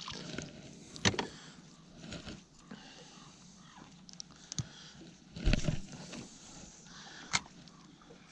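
Scattered clicks, knocks and rustling of a bass being worked off a crankbait's treble hooks, with a heavier thump about five and a half seconds in.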